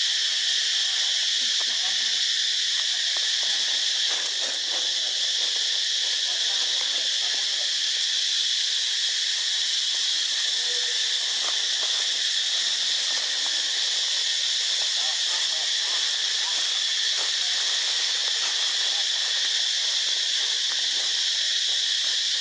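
Chorus of cicadas in tropical forest: a steady, high-pitched hiss that runs on unchanged.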